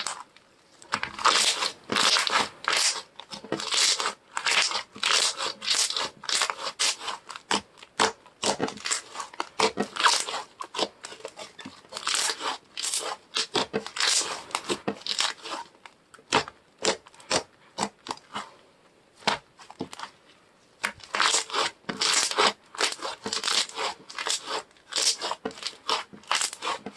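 Soft slime being squished, pressed and folded by hand, giving dense runs of quick sticky clicks and pops, with a sparser stretch a little past the middle.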